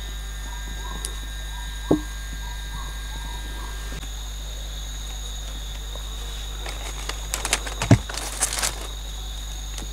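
Bamboo sticks and split bamboo slats knocking and clattering against each other as they are laid over a pit in the earth: one knock about two seconds in, then a cluster of clicks and a louder knock near the end. A steady high insect drone sounds underneath.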